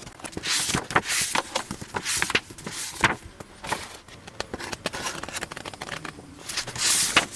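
Paper rustling as book pages are handled: a series of short rustles with small clicks among them, quieter for a couple of seconds in the middle and louder again near the end.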